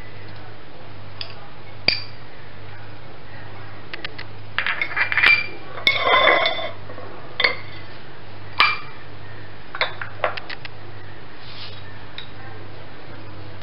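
Bowls and a china plate clinking and scraping as chopped herbs and garlic are scraped out onto the plate: a cluster of knocks and scrapes about five to six and a half seconds in, then a few single clinks. A steady low hum runs underneath.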